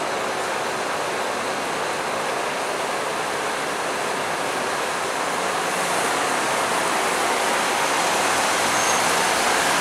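Steady roar of road traffic, an even rushing noise with no distinct engine note, getting a little louder about six seconds in.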